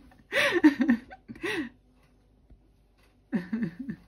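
A woman's voice making short wordless vocal sounds in three brief bursts, with quiet between them.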